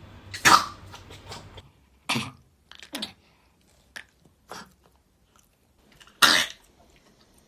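A dog coughing, about five short separate coughs with pauses between, the loudest near the start and again near the end: the dry 'kah' cough of a dog with a cold, which the speaker takes for a respiratory infection.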